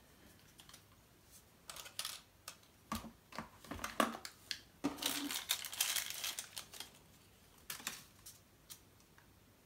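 Light clicks and taps of small plastic items handled on a table, with a stretch of plastic-bag crinkling about halfway through as a camera battery is unwrapped from its packaging.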